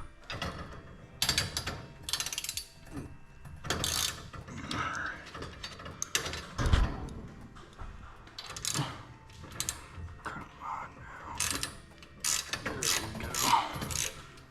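Hand tools working metal garage door hardware: irregular ratchet-like clicking, rattling and clanking as fasteners are loosened.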